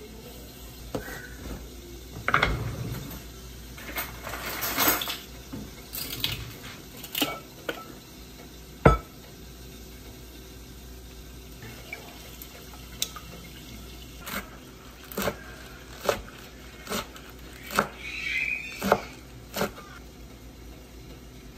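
Milk poured from a carton into a glass mixing bowl of eggs and whisked, with clinks of a wire whisk and a metal measuring spoon against the glass and one sharp clink about nine seconds in. In the second half comes a run of sharp knocks about once a second: a knife chopping spinach on a wooden cutting board.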